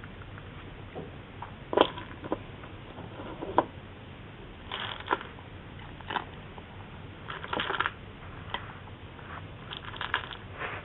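A cat crunching dry kibble, with irregular crisp crunches and clicks a second or so apart.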